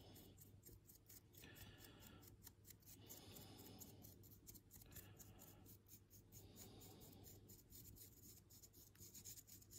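Faint quick back-and-forth scratching of a nearly dry paintbrush across a 3D-printed plastic ship miniature, several strokes a second: dry brushing, with most of the paint wiped off the bristles.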